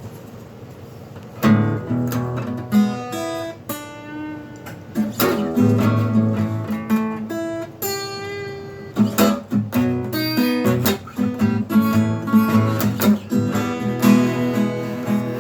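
Acoustic guitar playing a song intro: strummed chords with single-note runs between them, starting about a second and a half in.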